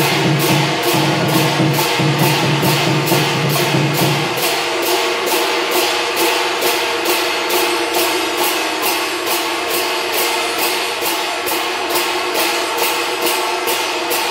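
Chinese temple procession percussion: barrel drum, gongs and hand cymbals struck together in a steady beat of about two and a half strokes a second, the gongs ringing on between strokes. A low steady tone underneath drops out about four seconds in.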